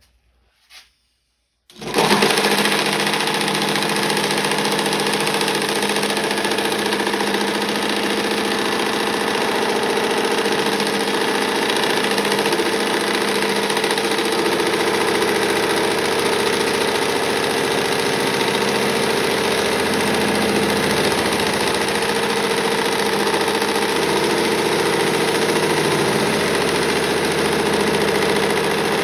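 Homemade bench-top wood lathe switched on about two seconds in, its motor and the wood stock held in a steady rest then running steadily at a constant pitch.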